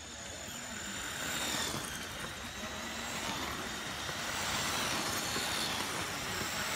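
A pack of 1/10 scale 2WD electric RC buggies, on Tamiya Sport Tuned brushed motors, racing on a dirt track: high motor whines over the hiss of tyres on dirt, growing louder as the cars approach.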